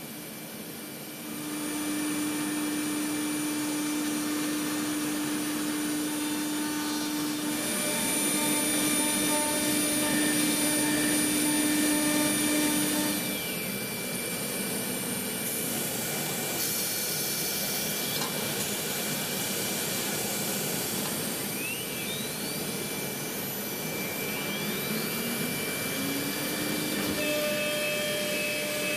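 AXYZ Pacer CNC router cutting a wood sheet: a steady rushing noise from the spindle, cutter and dust extraction, with a constant whine. It is a little louder for several seconds a third of the way in, and a few short rising whines come in the second half.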